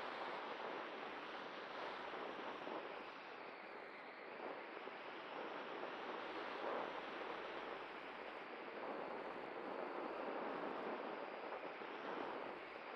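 Steady rush of airflow over the onboard camera of a Cularis electric glider, which is gliding with its motor off and its folding propeller folded back. The rush swells and eases a little, dipping briefly about four seconds in.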